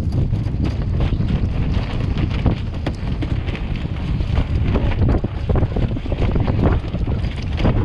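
Heavy wind buffeting the microphone aboard a small open sailboat in rough sea, a steady low rumble broken by many irregular slaps and flutters from water against the hull and loose sailcloth.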